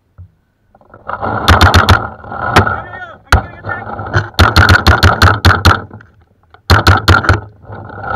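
Paintball marker firing rapid strings of sharp shots, several bursts of about eight to ten pops a second with short pauses between them.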